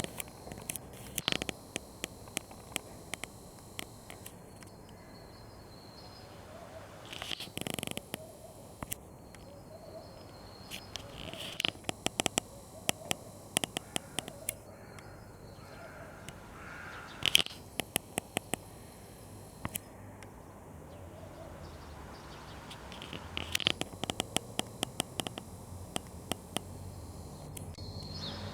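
Crows cawing now and then, a few harsh calls several seconds apart, with runs of sharp clicks between them.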